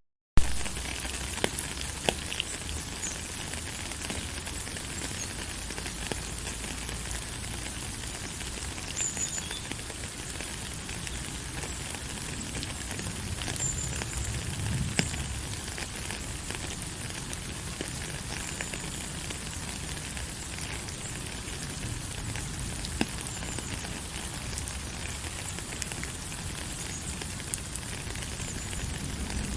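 Steady rain falling: an even hiss with scattered sharp drop ticks. The sound cuts out for a split second at the very start, then resumes with a loud tick.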